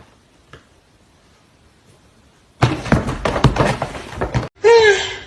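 A rapid clatter of knocks and thumps lasting about two seconds, starting about two and a half seconds in, followed by a short high cry whose pitch bends.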